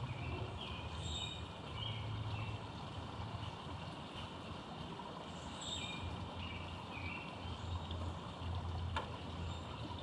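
Low rumble of road traffic, with a songbird singing two short phrases of slurred, falling whistles and a single sharp click near the end.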